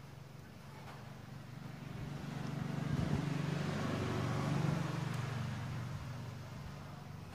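A motor vehicle passing by: its engine swells over a few seconds, peaks in the middle and fades away.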